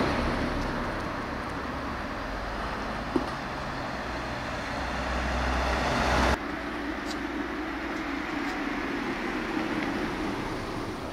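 Outdoor road traffic noise, a vehicle passing and growing louder until it cuts off abruptly about six seconds in, then a quieter steady traffic hum.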